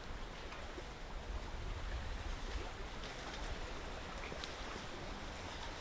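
Steady wind noise with a low rumble of wind buffeting the microphone, and a few faint ticks in the second half.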